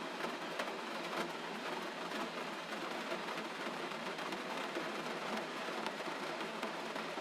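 Gentle rain falling steadily, an even patter of drops with faint scattered ticks.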